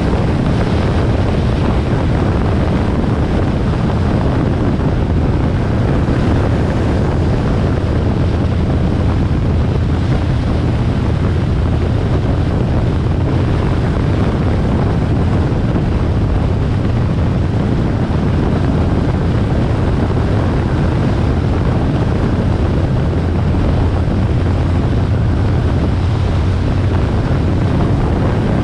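Harley-Davidson XL1200R Sportster's air-cooled V-twin engine running steadily under way, with wind rushing over the microphone.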